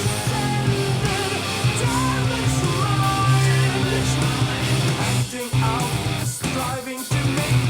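Rock song with electric guitar and a singing voice, played back through a JBL LSR305 studio monitor speaker; the music breaks off briefly a few times near the end.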